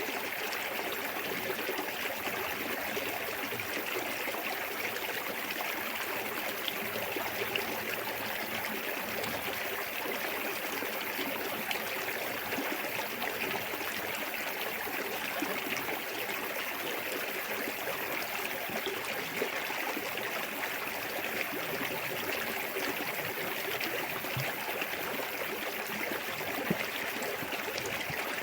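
Small waterfall and clear forest stream: water running and splashing in a steady, even rush, with a brighter hiss on top.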